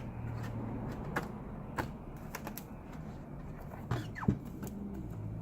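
Light clicks and taps of a MacBook Pro's aluminium bottom case being set on and pressed into place, with a short falling scrape-squeak about four seconds in.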